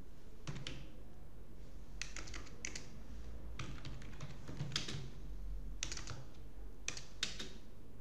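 Computer keyboard keystrokes: slow, irregular typing, single keys and short runs of two or three with gaps of up to a second or more between them.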